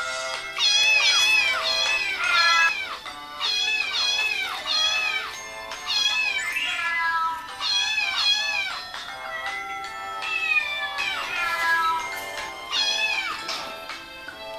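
A domestic cat whining in protest, giving about a dozen drawn-out meows one after another, their pitch bending up and down, over background music.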